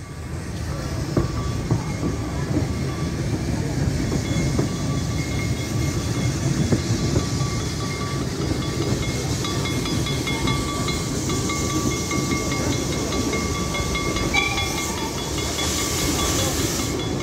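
Narrow-gauge steam train heard from a carriage window as it pulls away and runs: a steady rumble of the carriages on the track, building over the first couple of seconds, with a thin high whine running through and a hiss near the end.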